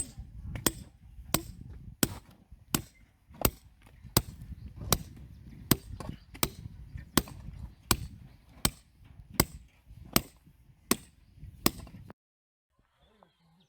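Steady, evenly spaced sharp blows of a striking tool, about seventeen strikes at a little under one and a half a second, stopping abruptly near the end.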